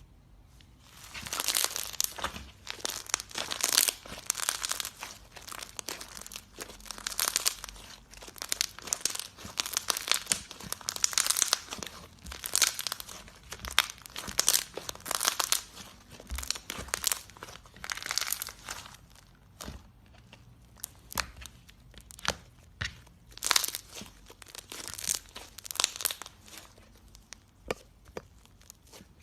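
Slime being squeezed and pressed by hand, making sticky crackling and popping sounds in bursts. The crackling is dense for most of the stretch, then thins to separate sharp pops near the end.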